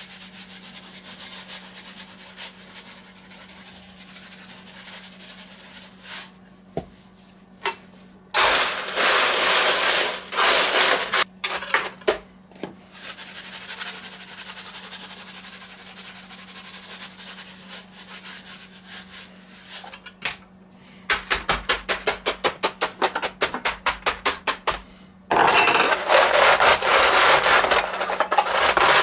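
Crushed ice in a stainless steel roasting pan being salted and worked, making a salt-ice bath to chill a cold plate for rolled ice cream. There is a loud stretch of pouring and crunching noise, later a quick run of rattles about seven or eight a second, and near the end a long scraping grind of ice against metal as a smaller steel pan is pressed down into the ice.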